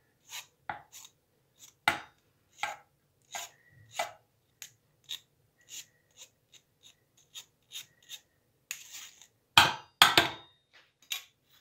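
A metal spoon scraping sieved cottage cheese off a wire-mesh sieve into a stainless steel bowl: a string of short scrapes and taps, irregular, about two a second. Two louder knocks come near the end.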